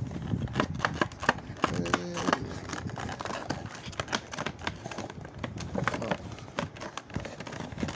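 Cardboard Funko Pop box being handled and worked open by hand: a run of irregular clicks, taps and scrapes.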